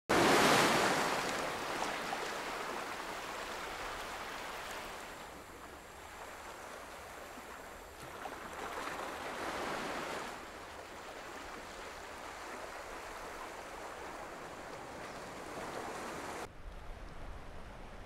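Ocean surf washing onto a sandy beach. A loud surge of breaking water comes right at the start and slowly fades, and a second swell builds and falls away about halfway through. Near the end the hiss of the surf cuts out, leaving a duller low rumble.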